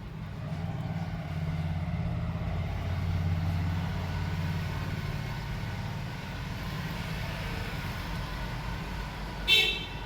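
A motor vehicle's engine running steadily, swelling a little in the first few seconds, with a short horn toot near the end.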